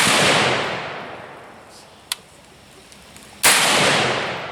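Two loud gunshots about three and a half seconds apart, one right at the start and one near the end, each echoing out slowly over a second or more. A short faint tick comes about two seconds in.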